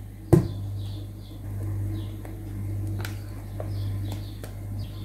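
A spoon knocking sharply once about a third of a second in, then a few lighter clicks as thick cream is scooped and scraped off it. Under this run a steady low hum and faint high chirps repeating every second or so.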